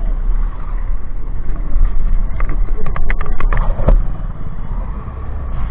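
Motorcycle riding in city traffic: engine and road noise under a steady low rumble of wind on the microphone, with a run of short clicks between about two and a half and four seconds in.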